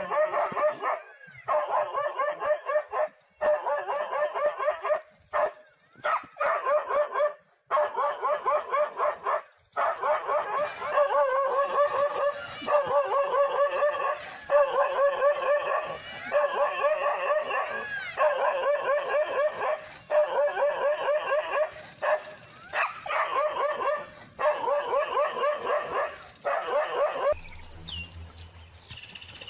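Small dog barking in quick runs of high-pitched yaps, each run about a second long with short gaps between. It stops suddenly near the end.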